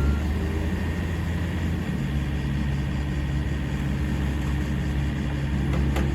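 Diesel engine of a Komatsu PC55MR-3 mini excavator running steadily at an even speed.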